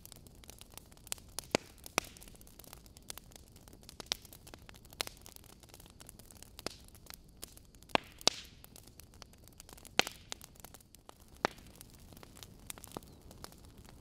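Log fire crackling in a fireplace: irregular sharp pops and snaps over a soft steady hiss, with a handful of louder snaps, two of them close together about eight seconds in.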